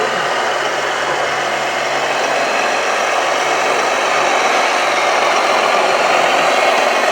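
Radio-controlled model construction machines running, a steady mechanical engine-like noise that grows a little louder after about four seconds.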